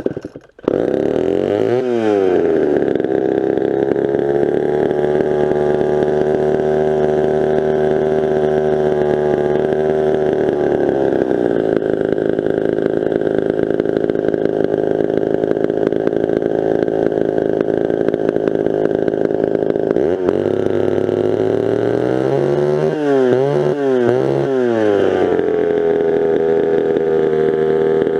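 Vintage Pioneer two-stroke chainsaw starting up and running. It catches about a second in and revs briefly, then runs steadily. Near the end it gives several quick throttle blips before settling back into a steady idle.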